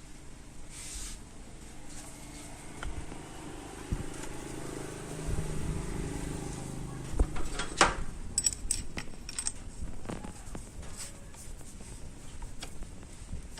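Metal tools and bicycle bottom-bracket parts being handled: a low rumble partway through, then a run of sharp metallic clicks and clinks, the loudest about eight seconds in.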